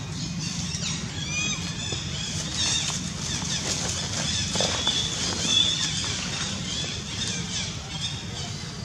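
Outdoor background of many small birds chirping, with quick repeated high chirps and sweeps, over a steady low rumble.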